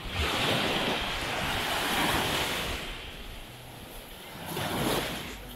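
Ocean surf washing in: a long rush of wave noise that fades after about three seconds, then a second, shorter wash near the end.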